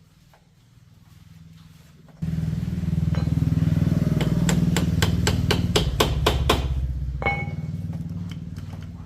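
An engine starts suddenly about two seconds in and runs loudly, with a quick series of sharp clicks over it, then eases off near the end.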